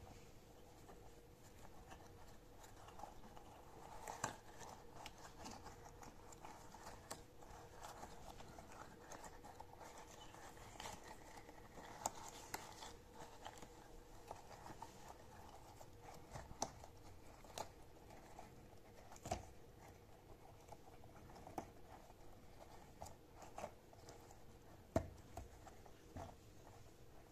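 Quiet handling noises of a soft, stretchy foam-bead-filled puppy toy having its stretch costume pulled on: soft rubbery rustling and squeezing, with scattered light clicks and taps, one sharper tap near the end. A faint steady hum sits underneath.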